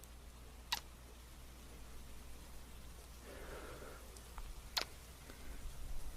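A soft breathy sigh a little past halfway, between two sharp kiss smacks, one early and one near the end, over a faint low hum.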